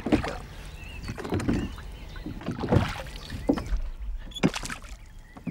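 Wooden oars rowing a small boat: a knock and splash of the oars in the water every second or so, with faint squeaks between strokes.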